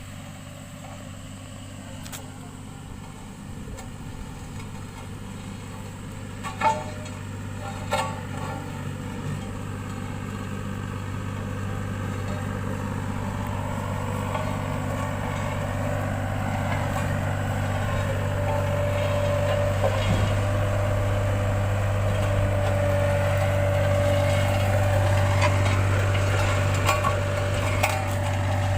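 Road roller's diesel engine running with a steady hum that grows gradually louder, with two sharp clicks about a quarter of the way in.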